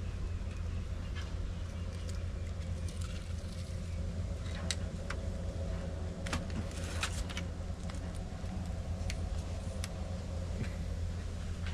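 Scattered light clicks and scratches of pliers and a weaving strip being worked through the rim of a bamboo basket, over a steady low hum.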